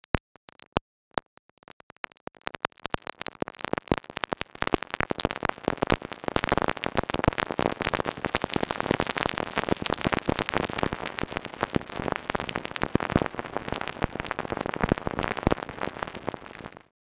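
Synthesized vinyl crackle from the Crackle oscillator of Ableton Live 12's Meld synth. It starts as a few sparse clicks and thickens into a dense crackle as the density is turned up. It loses some top end as the filter is brought down, then stops abruptly near the end.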